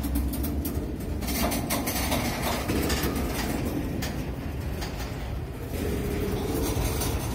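CN freight train of covered grain hopper cars rolling slowly past: a steady rumble of steel wheels on the rails, with scattered clicks and clanks as the cars go by.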